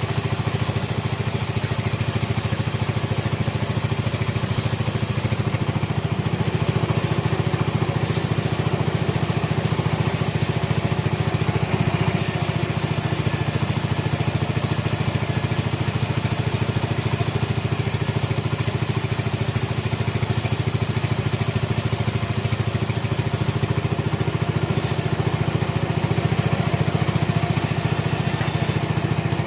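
Sawmill machinery running steadily with a continuous low engine drone. A thin high whine comes in twice, for several seconds each time.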